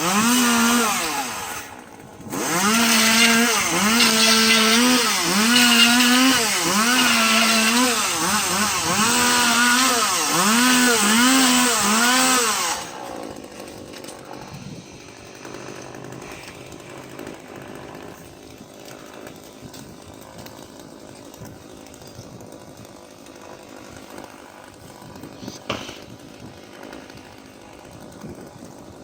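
Chainsaw running loud, its engine pitch rising and falling again and again as it is throttled and worked, with a short drop about two seconds in. It cuts off about halfway through, leaving only quieter background noise.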